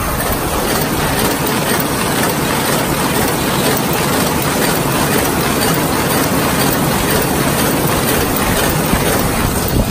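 Servo-driven paper bag making machine running steadily, a dense, even mechanical clatter.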